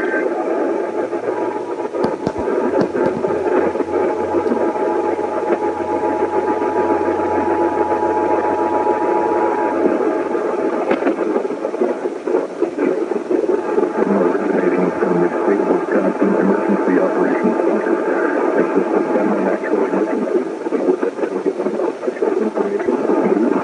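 Noisy radio reception: a loud, steady wash of static with indistinct broadcast audio beneath it. A faint steady tone and a low hum fade out about ten seconds in.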